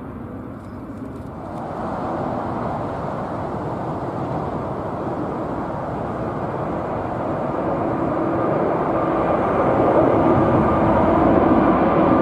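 Jet noise from an Airbus A350-941's Rolls-Royce Trent XWB engines, a rushing sound that swells from about two seconds in as the airliner draws nearer, with a steady hum and a higher whine coming through near the end.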